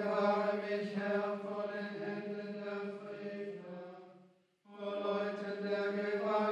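Benedictine monks chanting in low male voices, holding long notes. The chant breaks off briefly about four and a half seconds in, then resumes.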